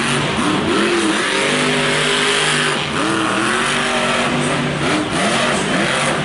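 Son-Uva Digger monster truck's engine revving up and down over and over, the pitch climbing and dropping in repeated swells as the truck spins and manoeuvres on the dirt.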